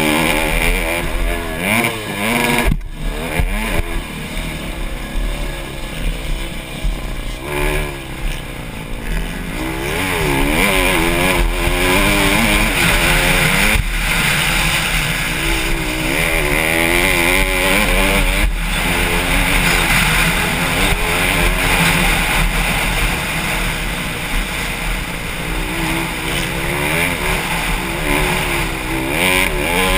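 Honda CRF150R's single-cylinder four-stroke engine at race pace, revving up and dropping back again and again as the rider accelerates, shifts and eases off the throttle, with a few momentary breaks in the engine note.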